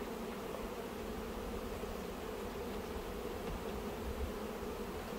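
Honeybees from an opened hive buzzing in a steady, unbroken hum.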